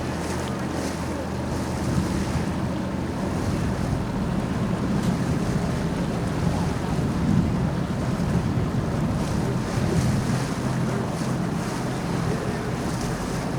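Tour boat's engine running steadily under way, with wind buffeting the microphone and water washing along the hull.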